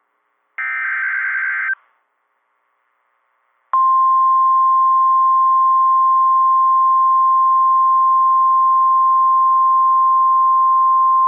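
A second-long buzzy burst of SAME digital header data ends about 1.7 s in. After a two-second silence, the NOAA Weather Radio warning alarm tone starts about 3.7 s in: one steady, unbroken high tone that signals a warning is about to be read.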